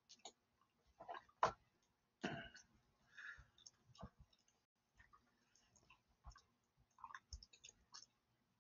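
Faint, scattered computer mouse clicks, single clicks spaced irregularly, the loudest about a second and a half in.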